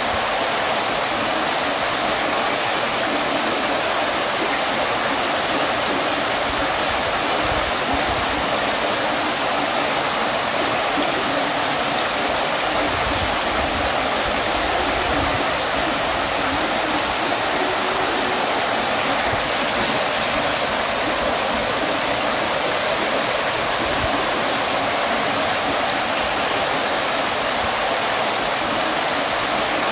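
Water in a stone fountain falling and splashing steadily, an even, unbroken rush.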